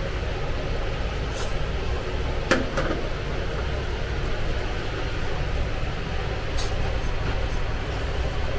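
Steady low kitchen rumble with a few sharp metallic clinks, the loudest about two and a half seconds in: a metal ladle knocking against a steel sauce tray and a metal plate as tomato sauce is spooned over döner.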